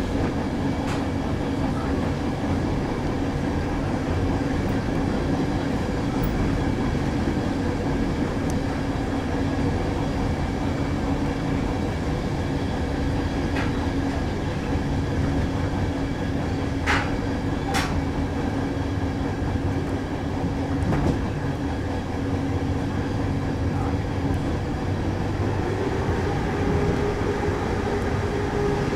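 Train running at line speed, heard from the cab: a steady rumble with a constant hum. Two sharp clicks come about a second apart a little past halfway, and a higher steady tone joins near the end.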